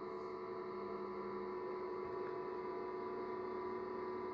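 Steady electrical mains hum with a stack of fixed tones, unchanging throughout; a lower tone in it fades out about a second and a half in.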